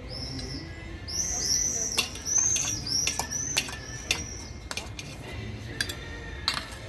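A small bird chirping over and over in short, high chirps during the first few seconds, with scattered clinks of cutlery and dishes.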